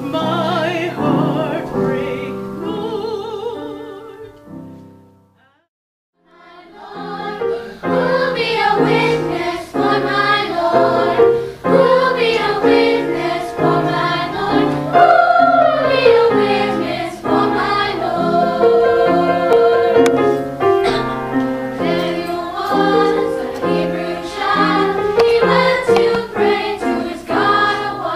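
A woman's solo singing voice with wide vibrato fades away about four seconds in. After a brief silence, a children's choir starts singing with piano accompaniment.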